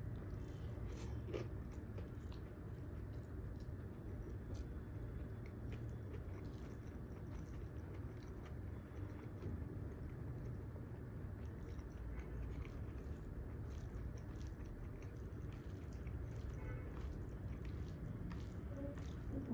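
A person chewing and biting food close to the microphone, with many small, irregular mouth clicks and smacks.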